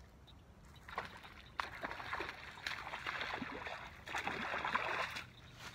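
A hooked largemouth bass splashing and thrashing at the water's surface as it is reeled in, in repeated surges that grow heaviest near the end.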